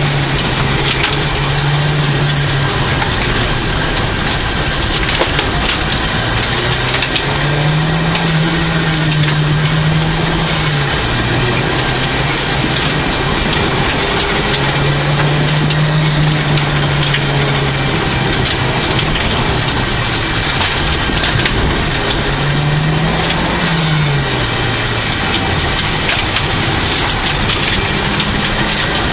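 1989 Toyota Celica GT4's turbocharged 2.0-litre four-cylinder under rally driving, its note climbing, holding and dropping back three or four times as the driver works the throttle, over constant tyre and stone noise from the stage surface.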